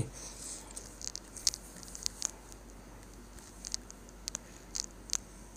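Computer mouse clicking: several brief, sharp clicks scattered over a few seconds above a faint background hiss.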